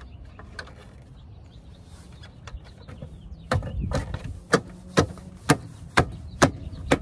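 Plastic hubcap being pressed onto a car's alloy wheel, its retaining clips snapping into the rim. The snaps are quiet at first, then from about halfway come as a run of sharp, loud snaps about twice a second as the hands work around the edge.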